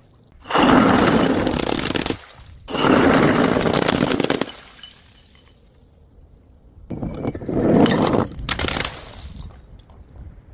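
Glass bottles breaking in three separate bursts of shattering and crunching glass, each lasting a second or two, the first about half a second in, the second close behind it and the third about seven seconds in.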